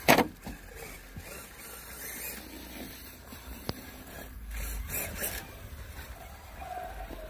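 Radio-controlled rock crawler's small electric motor and gearing working as it crawls over rock, with a loud knock right at the start and a sharp click about halfway through.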